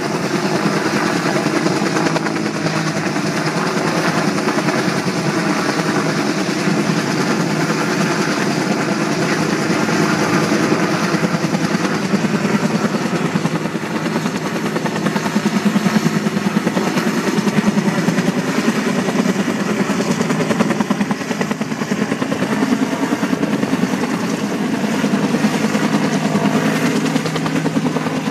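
Motor of a small boat running steadily at cruising speed, heard from aboard, with a constant low engine drone and rushing noise over it.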